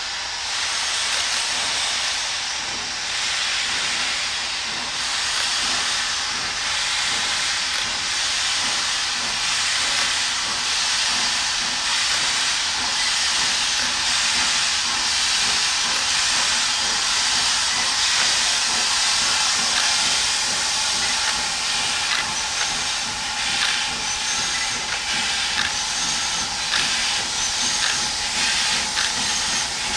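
Pakistan Railways HG/S class steam locomotive starting off, with a steady loud hiss of steam escaping low at the cylinders. About three-quarters of the way through, slow regular exhaust chuffs come in as it gets moving.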